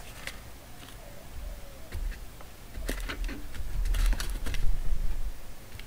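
Small vape-kit parts and packaging being handled on a tabletop: scattered light clicks and taps, with a low handling rumble swelling around the middle.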